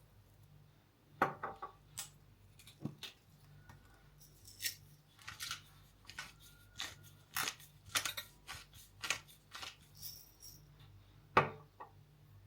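Kitchen utensils and dishes clinking and knocking during food preparation: an irregular run of light clicks and taps, with a sharp knock about a second in and another near the end, a few of them ringing briefly.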